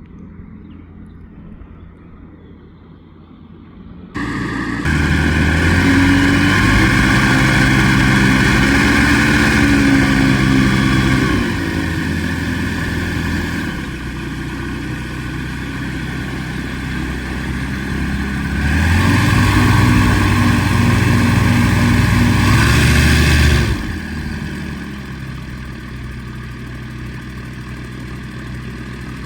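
Light aircraft's engine and propeller running: it comes in suddenly about four seconds in at high power, eases back, runs up again, then settles to a lower setting near the end.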